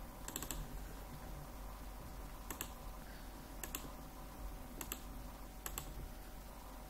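Computer mouse clicking: five sharp clicks, each a quick double tick, spread a second or so apart, over a faint low electrical hum.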